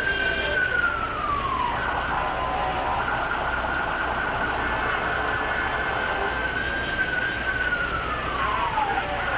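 Emergency siren wailing: a high tone held for several seconds, then sliding down in pitch and snapping back up, twice, over steady background noise.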